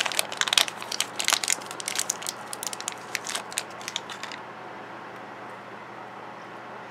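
Thin plastic wrapper crinkling and crackling as it is crumpled and peeled off a small toy by hand, stopping about four seconds in.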